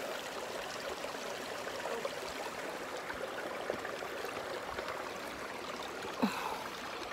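Steady rush of water, with a brief faint sound about six seconds in.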